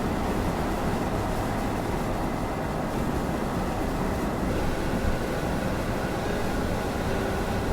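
Steady road noise inside a moving camper van: an even low rumble of engine and tyres with a hiss over it.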